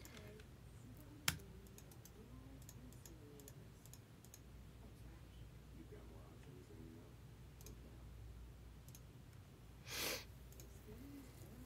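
Scattered quiet clicks at a computer over a faint steady hum, with one sharp, louder click about a second in and a brief breathy rush of noise near the end.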